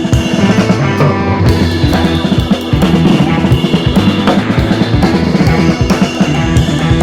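Background music with a drum-kit beat, bass drum and snare, over sustained pitched instruments.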